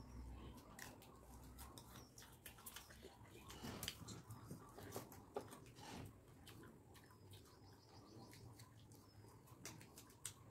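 Faint eating sounds: fingers working rice and fish curry on a steel plate and chewing, heard as scattered soft clicks and smacks. A few faint short high chirps come through now and then.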